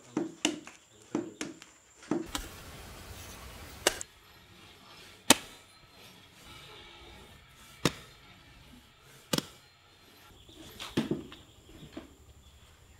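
Wet potter's clay being slapped and kneaded by hand on a wooden board: soft thuds and several sharp smacks a second or two apart. A brief rush of noise comes about two seconds in.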